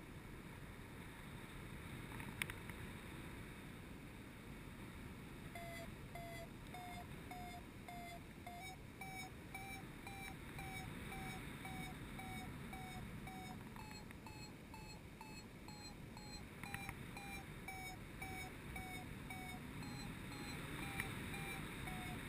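Paragliding variometer beeping its climb tone, the sign that the glider is rising in lift: short beeps about two a second, starting about five seconds in and stepping up in pitch around the middle as the climb strengthens. A low rush of wind runs underneath, with a sharp click about two seconds in and a couple more later.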